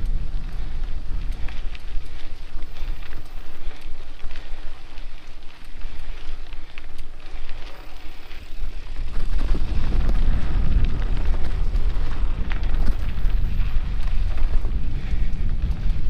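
Wind buffeting a bike-mounted camera's microphone as a mountain bike rolls along a dirt trail, tyres crunching over the ground with small clicks and rattles. The rumble gets louder about nine seconds in.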